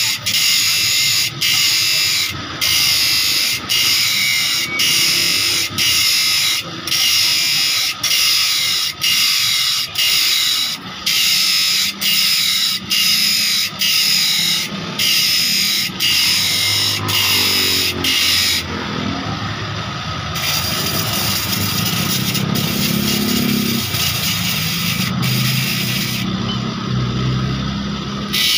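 Bench grinder's thin wheel sharpening a handsaw's teeth one at a time: a high grinding rasp in quick, even strokes, with a short gap between teeth about every two-thirds of a second. About two-thirds of the way in the grinding stops for a moment, then runs on unbroken, and it stops again near the end while the grinder keeps running.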